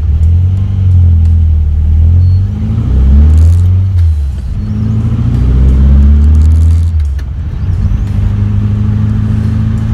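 Tuned air-cooled VW Beetle 1303S flat-four (2007cc, Weber 48 IDA carburettors) pulling away from a stop, heard inside the cabin. The revs climb, drop at a gear change about four seconds in, climb again, drop at a second change about seven seconds in, then run steadily: the engine pulling cleanly without stalling.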